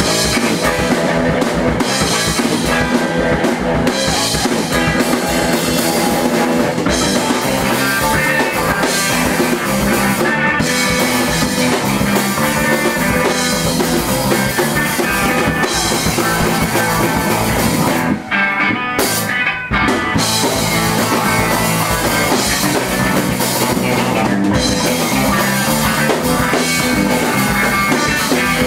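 Live punk rock band playing at full volume: drum kit and electric guitars, with two short stop-time breaks about two-thirds of the way through.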